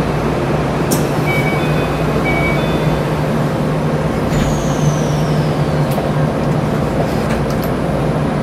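Keikyu 1000 series electric train (set 1033) standing before its departure, with a steady low hum from its equipment, a few faint clicks and a faint falling whistle about halfway through.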